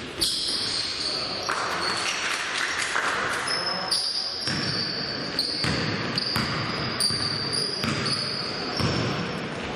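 Basketball game court sound in a large hall: a ball bouncing on the hardwood, shoes squeaking on the floor almost without a break, and players' voices.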